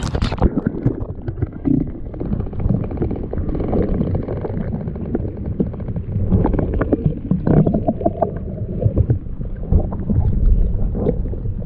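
Wind rumbling on the microphone, with water lapping and knocking irregularly against a kayak hull. A sharp click right at the start.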